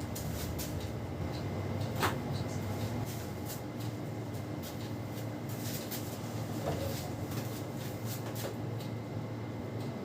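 Hands massaging a person's head and hair: a string of short rubbing, tapping and slapping sounds on scalp and hair, with one sharper slap or crack about two seconds in.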